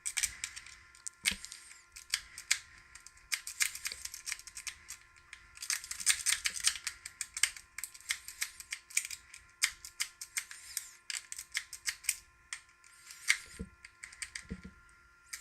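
Rake pick being jiggled rapidly in the keyway of a Master Lock M5 padlock under tension from a tension wrench: fast, irregular metallic clicking and scratching as the pins are raked, in runs of quick clicks.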